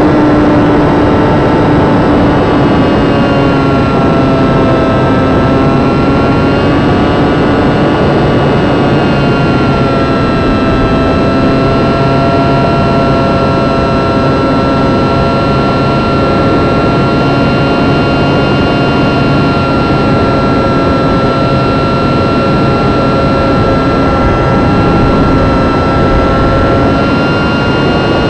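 Electric motor and propeller of a UMX Beast micro RC plane running, picked up by a camera on the airframe: a steady whine whose pitch sags a little and then settles, over rushing air noise.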